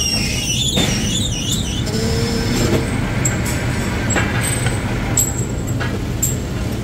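Metal lathe turning a steel sprocket blank in its chuck: a steady low machine drone. A few sharp clicks fall through it, and a wavering high squeal runs through the first two seconds.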